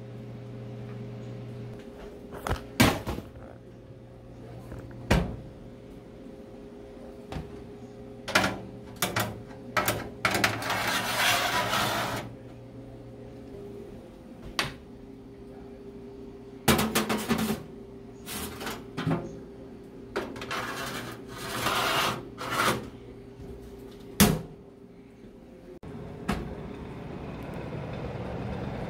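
Metal trays of a COSORI food dehydrator being handled and slid into its rack: sharp clicks and knocks with a few longer scraping slides. About three seconds before the end the dehydrator's fan starts and runs with a steady rush of air.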